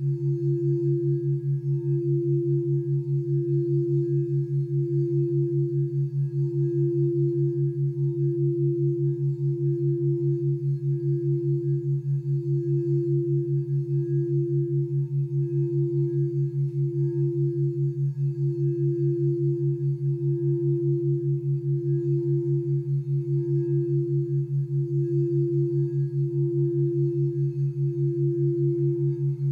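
A white crystal singing bowl sung by a mallet circling its rim, holding one steady note that slowly swells and fades. Beneath it is a steady low background tone pulsing quickly: brain-entrainment tones meant to bring on a relaxed alpha state.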